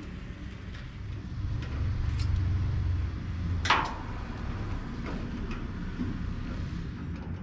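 Hands-on work noises as a band saw transmission and its drive belt are fitted: low rumbling handling sounds with a single sharp clack about three and a half seconds in.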